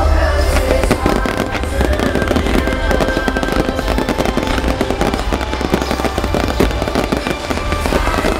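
Fireworks display going off in a dense, continuous run of rapid crackles and bangs, with music playing underneath.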